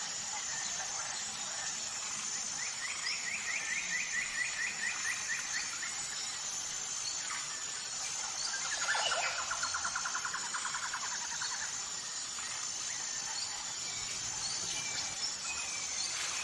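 Birds singing over a steady high hiss: two rapid trilled phrases of quickly repeated notes, one about three seconds in and a lower one about nine seconds in.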